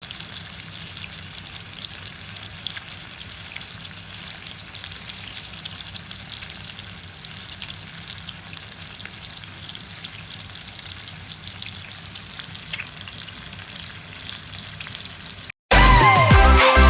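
Chicken longganisa frying in oil in a pan: a steady sizzle with scattered small pops, which stops shortly before the end as music starts.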